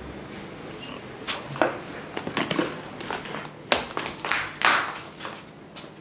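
Scattered soft clicks and brief rustles, unevenly spaced, with a longer breathy hiss about four and a half seconds in.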